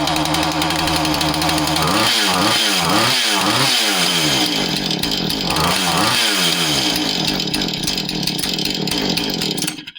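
Husqvarna 435 two-stroke chainsaw engine running after an ignition coil replacement, the repair that cures its no-start. It is revved up and down several times in quick succession a couple of seconds in, again briefly near the middle, then runs steadily until it cuts off suddenly near the end.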